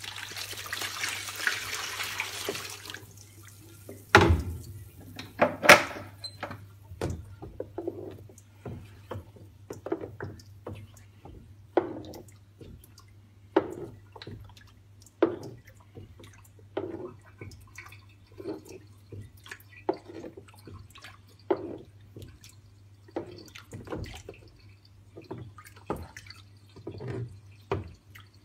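Developer poured over a platinum-palladium print in a tray for the first three seconds, with two knocks a few seconds in, then the tray rocked so the liquid sloshes in even waves about every second and a half. A steady low hum underneath.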